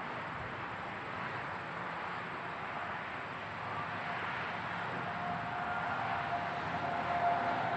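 Interstate highway traffic heard up close: a steady rush of tyres on pavement from passing vehicles. It swells over the second half as a vehicle approaches, with a steady whine that grows louder toward the end.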